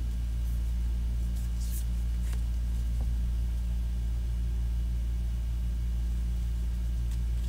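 Steady low hum, with a few faint soft taps and slides of tarot cards being drawn from the deck and laid down, about one to three seconds in.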